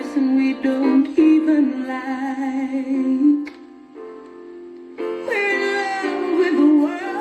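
Music with a female singing voice and accompanying instruments, with a brief quieter passage in the middle.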